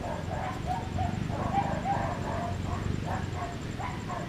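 A chorus of short, repeated animal calls, several a second, over a steady low rumble.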